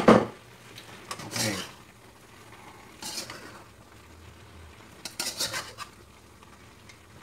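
A cooking utensil knocking and scraping against a wok packed with food, in a few short bursts: a sharp clank at the start, then scrapes about one, three and five seconds in.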